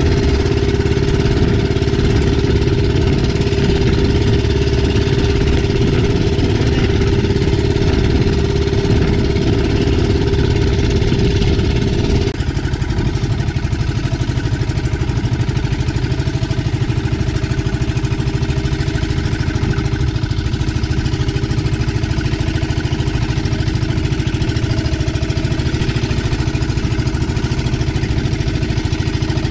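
Small single-cylinder-style engine of a wooden outrigger fishing boat running steadily while trolling at speed, with the hiss of wind and water over it. About twelve seconds in, its sound shifts slightly and gets a little quieter.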